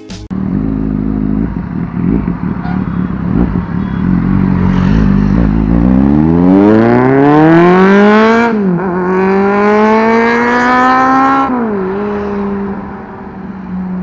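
Superbike engine accelerating hard through the gears. After a low, uneven rumble, the engine note climbs steeply, drops sharply at a gear change a little past halfway, climbs again and shifts once more near the end, then holds and fades as the bike pulls away.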